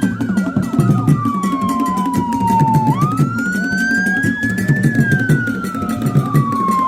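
A wailing siren, sliding slowly down, jumping back up about three seconds in, climbing, then sliding down again, over music with a low, steady beat.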